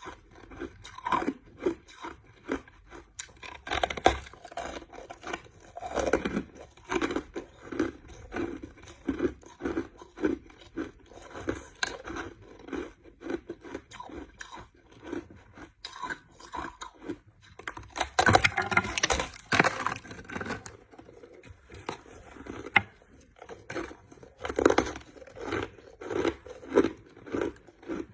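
A person chewing crushed ice: a steady run of crunches, about two a second, with a louder, denser burst of crunching around eighteen seconds in.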